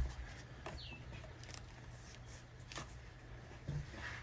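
Faint ticks of a razor blade snicking small relief cuts into marine vinyl, with the rustle of the vinyl being handled. A short high falling chirp comes about a second in.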